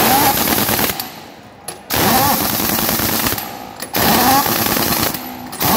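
Pneumatic impact wrench hammering on a lorry's wheel nuts in rapid rattling bursts: three bursts with short pauses between them, and a fourth starting near the end.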